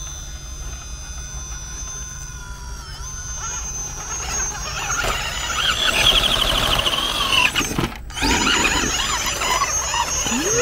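Small electric RC crawler motor and geared drivetrain whining as the truck crawls over rock. A steady high-pitched whine at first turns into a busier, squealing whine whose pitch wavers with the throttle, and the sound cuts out completely for a moment about eight seconds in.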